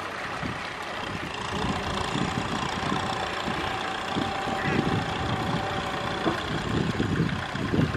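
Farm tractor's diesel engine running steadily while the tractor works in deep mud, with a thin steady whine for a few seconds in the middle that cuts off suddenly.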